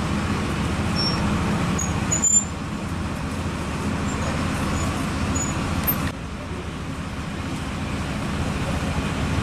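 Steady low rumble of background road traffic, dropping abruptly in level twice.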